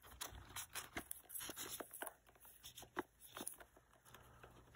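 Paper cash envelopes and banknotes being flipped through and handled in a clear plastic box: faint, irregular rustles and light clicks.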